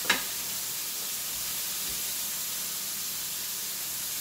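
Chicken thighs searing in a hot pan: a steady sizzling hiss. A single sharp clank comes right at the start.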